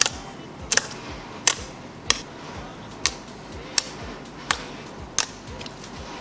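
Glossy slime being poked and pressed, popping with a sharp click roughly every three-quarters of a second, over soft background music.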